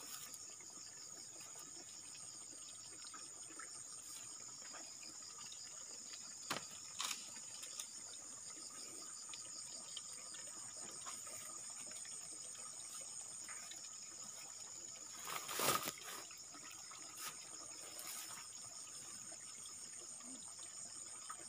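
Steady, high-pitched chorus of insects trilling in the grass, with a few brief knocks and rustles, the loudest about sixteen seconds in.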